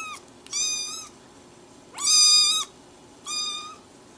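Kitten mewing: short, high-pitched calls about a second apart. One ends just at the start, three more follow, and the one about two seconds in is the loudest.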